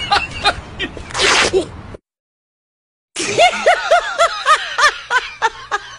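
A man's voice: a short sneeze-like burst about a second in, then, after a second of dead silence, a run of quick high-pitched coaxing calls that each rise and fall, three or four a second.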